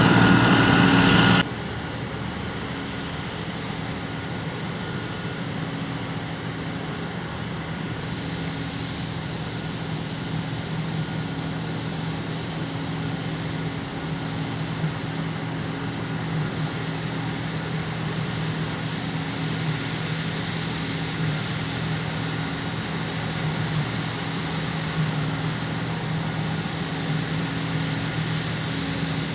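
Large farm diesel engine running steadily under load. A louder stretch ends abruptly about a second and a half in, and a faint high whine joins about eight seconds in.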